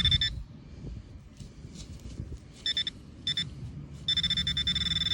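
Nokta Makro Gold Kruzer metal detector sounding its high, buzzing target tone: a few short beeps, then a long held tone starting about four seconds in. The detector is picking up a mobile phone rather than a buried target.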